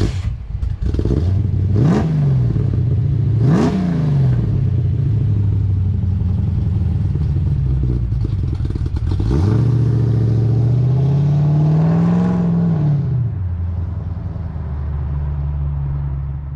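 1967 Chevrolet C10 pickup's 454 cubic-inch big-block V8 running. It is blipped twice in quick revs, then the truck pulls away, the engine rising in pitch as it accelerates, before settling to a steadier note near the end.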